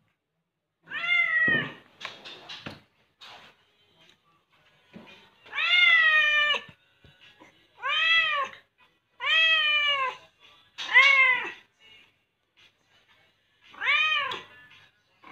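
Domestic cat meowing six times, each meow drawn out and arching up then down in pitch, with gaps of a second or more between them.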